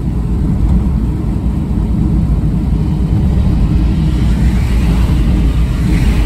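Car driving on a rain-soaked road, heard from inside the cabin: a steady low rumble of tyres and engine. Near the end a hiss swells as an oncoming car passes through the spray.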